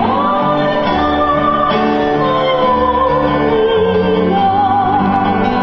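Singing with instrumental accompaniment: a wavering melody line with long held notes over slowly changing sustained bass notes.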